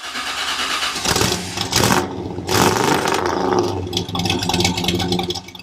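Engine sound effect, starting and revving, used as an intro sting. It surges louder twice around two seconds in and fades out near the end.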